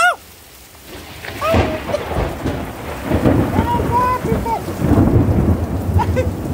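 Heavy downpour with thunder rolling in: a deep rumble builds from about a second and a half in and keeps going over the steady hiss of the rain.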